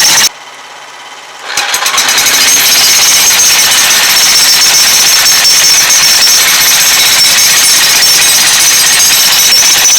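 Jackhammer breaking concrete, running steadily and loudly. It stops just after the start and starts up again about a second and a half in.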